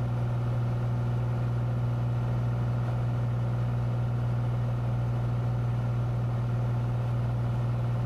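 Cessna 182's piston engine and propeller droning steadily at climb power just after takeoff, a low, even drone with no change in pitch.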